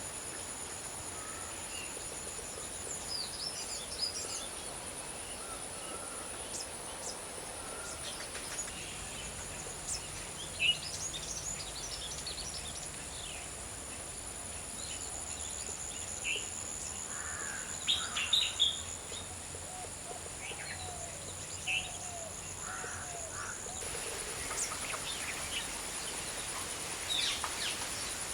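Several wild birds calling and chirping in short, scattered bursts, the loudest about a third of the way in and again past the middle, over a steady high-pitched insect drone.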